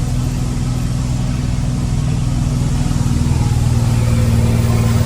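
Ford Cargo dump truck's diesel engine running steadily, its short straight exhaust pipe giving a deep rumble heard through a partly open cab window; it grows slowly louder toward the end.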